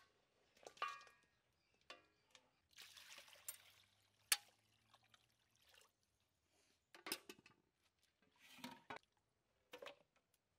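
Water poured from an aluminium pot over raw mutton pieces in an aluminium bowl, quiet splashing and trickling as the meat is washed. Sharp clinks of the metal dishes are heard, the loudest a little after four seconds in.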